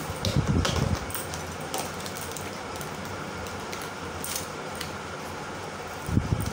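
Jewellery being handled and picked through: small scattered metallic clinks. There are two brief soft bumps of handling, one about half a second in and one near the end.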